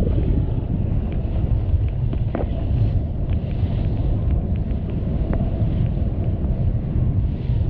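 Wind buffeting the microphone aboard a moving boat: a steady low rumble, with a few faint ticks.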